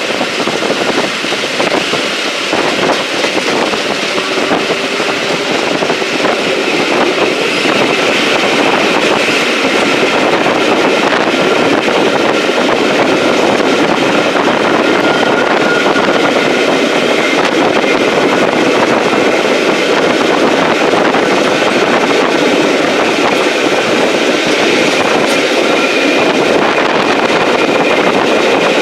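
Train running along the rails, heard from on board a steam-hauled train: a steady, loud rolling noise of wheels and carriage with rushing air, building a little over the first several seconds and then holding steady.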